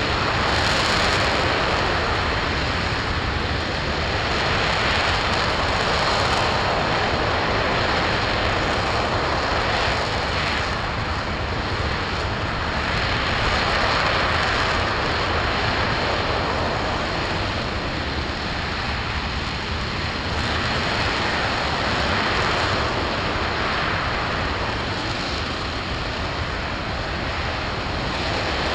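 RS-25 liquid-hydrogen/liquid-oxygen rocket engine firing in a long-duration hot-fire test: a continuous loud rushing noise, steady, with gentle swells in strength every few seconds.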